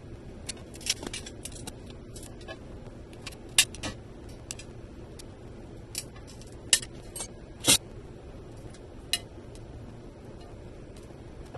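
Clear sheet glass being broken away from a scored circle, with sharp snaps and clinks of the glass scrap and tools on the work surface: a dozen or so irregular clicks, the loudest a little past the middle.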